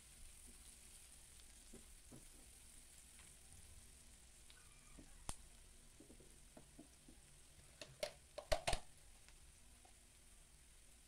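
Garlic and onion frying gently in margarine in a nonstick pan, a faint steady sizzle stirred with a silicone spatula at first. A single click about five seconds in and a quick cluster of sharp knocks about eight seconds in stand out loudest.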